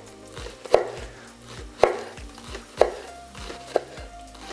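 Large kitchen knife slicing a leek into rings on a wooden cutting board: four sharp knocks of the blade through the leek onto the board, about one a second.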